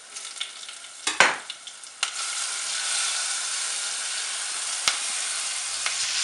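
Poppy-seed and mustard paste with turmeric and green chilies frying in hot oil in a saucepan, stirred with a wooden spatula. A few knocks come about a second in, then a steady, loud sizzle from about two seconds in, with one sharp tap near the end.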